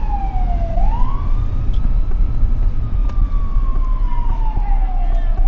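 Ambulance siren wailing: a slow falling tone that sweeps quickly back up about a second in and again near the end, over a steady low rumble.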